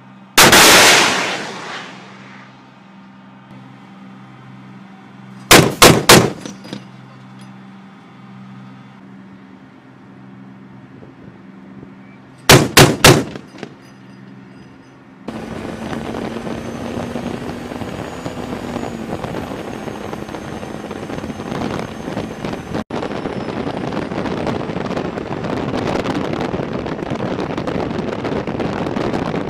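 Heavy gunfire from an LAV-25's 25 mm cannon: one very loud shot with a long rolling tail about half a second in, a quick burst of three shots around six seconds, and a burst of four around thirteen seconds. From about fifteen seconds, steady rushing wind noise.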